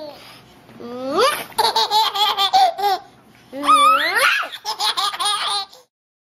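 A baby laughing in two long bouts, each opening with a rising squeal and breaking into quick, rapid pulses of laughter. It cuts off suddenly near the end.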